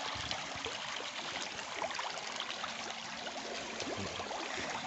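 Tilapia in a floating net cage thrashing at the surface during feeding: a steady, dense patter of many small splashes.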